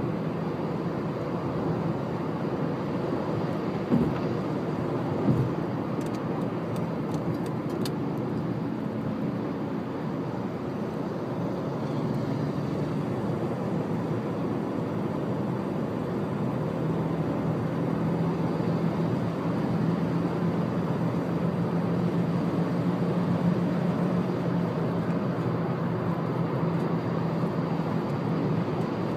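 Car cruising at expressway speed, heard from inside the car: a steady drone of tyre and engine noise, with a low hum that grows a little stronger about halfway through. Two brief knocks come a few seconds in.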